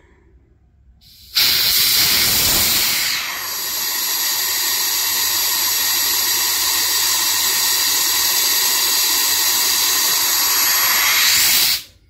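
Compressed air at about 100 psi blasting out through a 1/4-inch industrial quick-connect plug, universal coupler and flowmeter, venting at about 29 CFM. The flow starts suddenly about a second in, runs as a loud steady hiss, and is shut off sharply just before the end.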